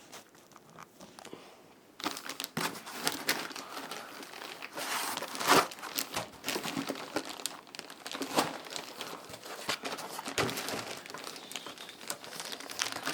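Plastic packaging being handled, crinkling and rustling with sharp crackles. It starts about two seconds in after a quiet moment and is loudest a little past the middle.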